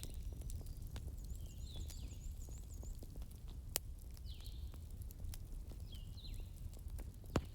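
Bonfire crackling with a steady low rumble and scattered sharp pops, two of them louder, near the middle and near the end. Birds chirp repeatedly over it, with a quick run of high notes about a second in.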